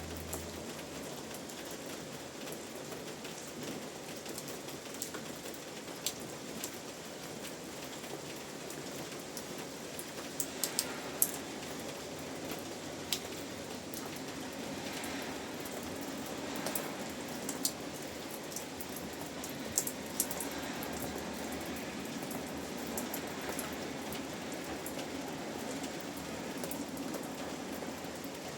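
Steady rain falling, with scattered sharp clicks of individual drops striking a surface.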